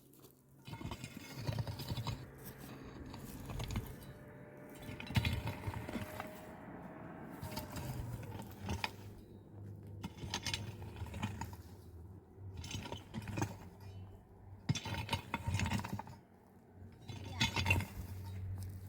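Irregular clinks and knocks of small hard objects being handled.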